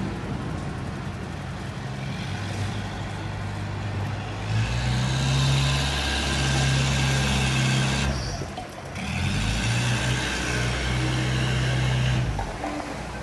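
A motor vehicle's engine running as it drives along a street, heard from the moving vehicle with road noise. The engine note rises about four seconds in, dips for a moment past the middle, then picks up again.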